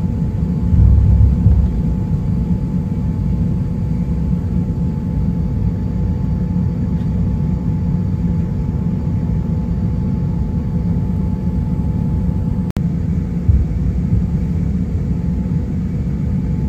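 Cabin noise of an Airbus A350-900 taxiing, heard from a seat over the wing: the Rolls-Royce Trent XWB engines' steady low rumble with faint steady tones above it. Two brief low bumps, about a second in and again about three seconds before the end.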